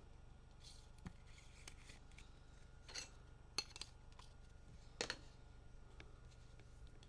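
Faint handling of trading cards: soft rustles and a few short sharp clicks, the loudest about three and a half and five seconds in, over a low steady hum.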